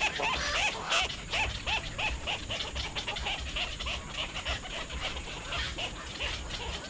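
An animal giving a rapid series of short calls that rise and fall in pitch, about three to four a second, over a steady noisy background.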